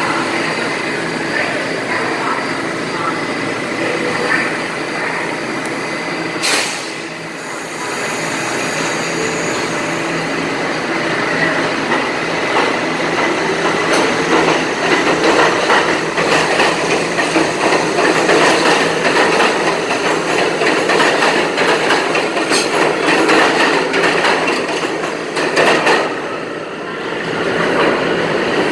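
New York City subway train running past along the station track, a steady mechanical hum under a clatter of wheels over the rails. There is one sharp clack about six seconds in, and the rattling grows denser and louder from about halfway through.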